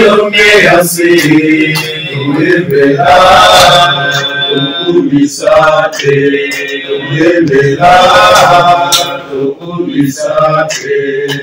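A small group of men singing a hymn together, with hand claps.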